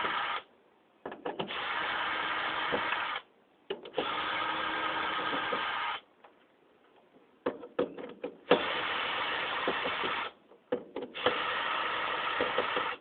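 Power drill running in five bursts of about two seconds each, backing screws out of a ceiling fan's blade brackets, with small metallic clicks of loose screws and parts between bursts.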